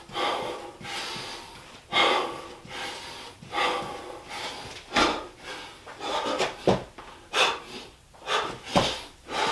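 A man breathing hard and fast in short, forceful puffs mid-workout, with a few dull thuds of his body and feet hitting the floor in the second half as he drops into a burpee.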